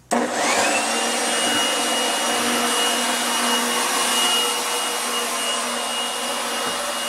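Electric leaf blower switched on and running at full speed, its motor whine climbing to a steady high pitch within the first half second over a loud, steady rush of air. It is running off a 2000-watt inverter fed by a solar-charged battery bank as a load test.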